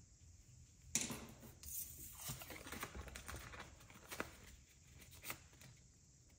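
Clear plastic binder envelopes and a plastic savings-challenge sheet crinkling and rustling as they are handled, with a sharp click about a second in and scattered light taps, dying down near the end.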